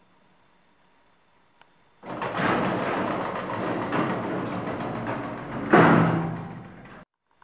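Elevator's automatic sliding doors closing: a small click, then a rattling slide lasting about four seconds, ending in a loud bang as the doors meet.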